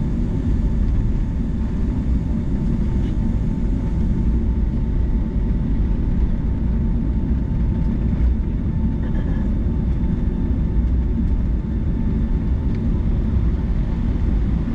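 Steady low rumble of a Boeing 757-200's jet engines and airflow heard inside the passenger cabin, with a faint steady hum above it.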